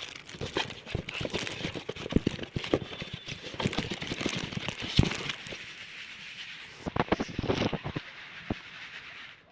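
Handling noise: irregular rustling, crackling and small knocks, with a sharper knock about five seconds in and another cluster of knocks around seven seconds.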